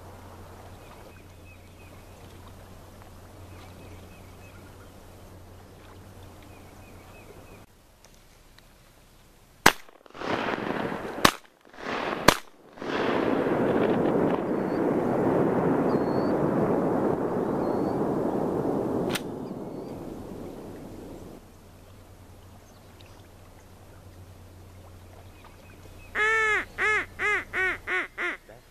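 Three shotgun shots in quick succession about ten to twelve seconds in, followed by several seconds of loud rushing noise. Near the end, a run of about seven short quacks, each falling in pitch, from a duck.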